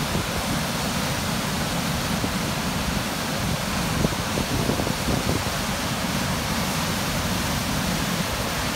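Big Sioux River pouring over the rock ledges of a wide waterfall at its typical flow: a steady, even rush of falling water.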